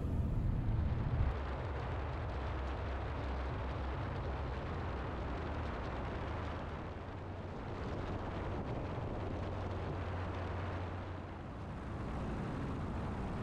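Steady drone of a single-engine light aircraft's engine and propeller in flight, mixed with wind rushing past the microphone. The level dips slightly twice.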